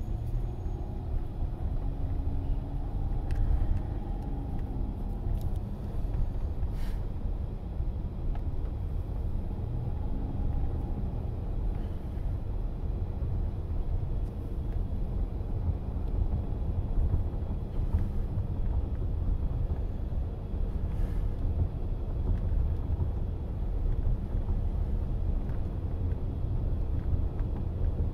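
Steady low road rumble of a Chrysler Pacifica Hybrid minivan driving at street speed, heard from inside the cabin, with faint humming tones rising over it briefly near the start and again about ten seconds in.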